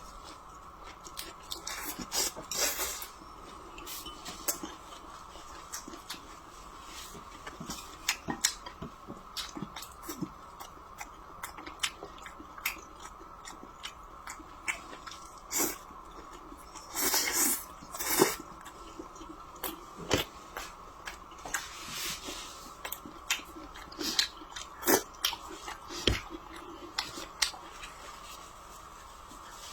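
Close-miked chewing and biting of food, irregular, with sharper bites and mouth clicks now and then, over a faint steady hum.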